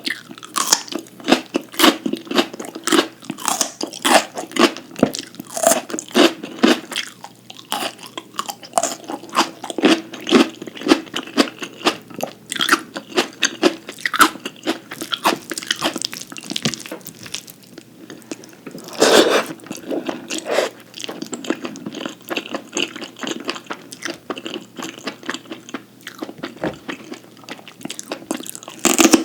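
Close-miked eating: wet chewing and crisp crunching bites, irregular and continuous, with one louder crunch about two-thirds of the way through.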